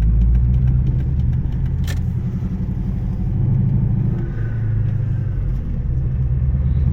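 Car interior road noise while driving: a steady low rumble of engine and tyres.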